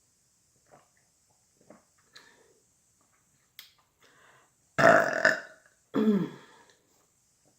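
A woman burping loudly twice, about five and six seconds in, the second burp falling in pitch: belches after a full meal of grits and fried catfish. Faint small mouth clicks come before.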